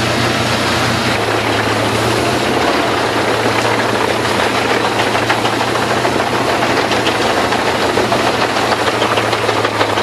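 Albach Diamant 2000 self-propelled wood chipper running under load, its engine holding a steady drone while brush and branches are drawn in and chipped. A dense crackle of snapping wood runs over the drone and grows busier after the first few seconds.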